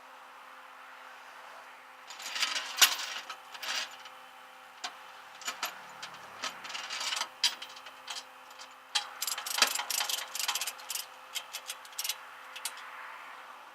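Irregular metallic clicking and rattling, like keys or metal parts being handled, over a steady low hum.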